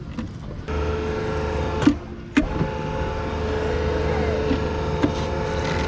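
Bumper boat motor running steadily with a low hum. It drops out briefly about two seconds in, then picks up again, with a few sharp knocks.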